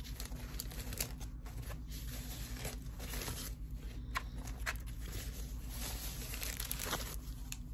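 Soft wrapping and packaging rustling and crinkling as it is handled, with scattered sharper crackles.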